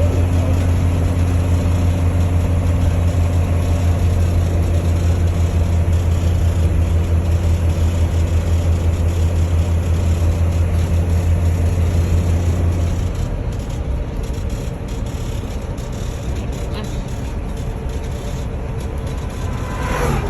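Road and engine noise inside a motorhome's cab while it drives: a steady low drone over a rumble of tyre and wind noise, the drone dropping away about two-thirds of the way through and leaving a quieter rumble.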